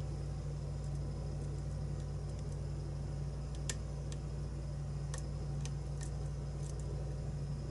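A few faint, sharp metallic clicks scattered through the second half, from a lock pick working the pins of a challenge lock that is held in a false set, over a steady low hum.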